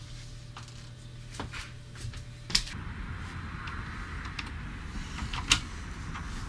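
A few sharp clicks and knocks, the loudest about two and a half seconds in and again about five and a half seconds in, over a low steady hum that gives way to faint hiss.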